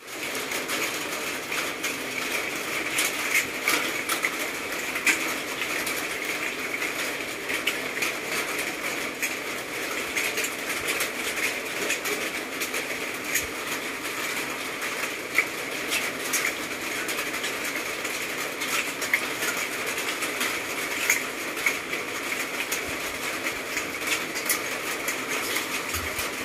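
Steady rain falling, a continuous hiss with scattered small ticks and taps.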